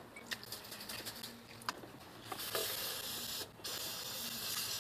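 Aerosol can of carburetor cleaner spraying through its straw down the pushrod holes onto the hydraulic lifters to flush out sludge: a steady hiss that starts a little over two seconds in, with a short break partway through. Before it, a few light clicks of handling.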